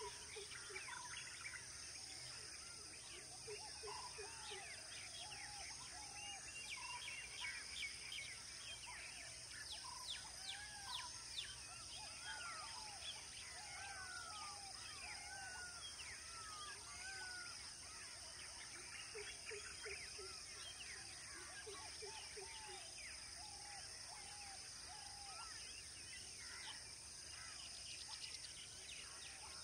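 Several wild birds chirping and calling in quick short notes, busiest in the middle, over a faint steady high hiss.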